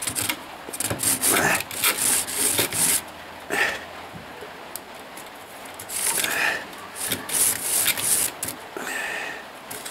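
A twisted spiral wire scraping back and forth inside the tubes of a car heater core, loosening the dirt clogging them. It makes quick rasping strokes, eases off for a couple of seconds in the middle, then starts again.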